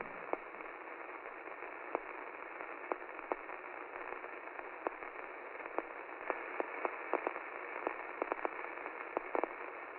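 Old-radio static: a steady, thin hiss with scattered crackles and pops, more of them in the last few seconds.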